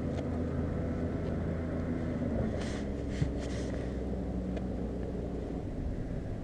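Motorboat engine droning steadily across the water, with a few faint brief rustles about three seconds in.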